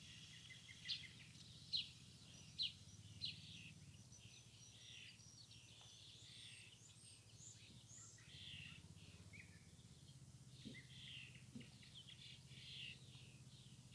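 Small birds chirping and singing, many short overlapping calls and trills, a few of them louder in the first few seconds, over a faint low steady hum.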